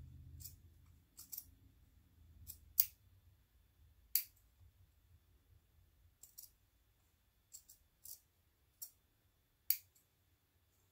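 Small scissors snipping through two sewn-together layers of fabric: about a dozen short, crisp snips at an uneven pace.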